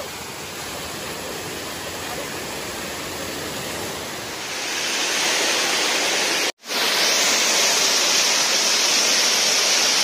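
Waterfall water pouring and splashing over rock, a steady rushing hiss. It grows louder and brighter about halfway through, cuts out for an instant about two-thirds of the way in, then carries on at the louder level.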